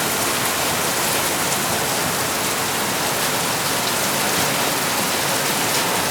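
Heavy rain falling steadily in a tropical storm, a dense even hiss of rain on hard surfaces with scattered drops ticking through it.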